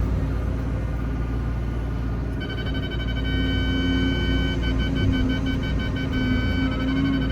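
An excavator's diesel engine runs steadily while digging. A couple of seconds in, a high electronic beeper comes on as a steady tone, then switches to rapid beeping about halfway through.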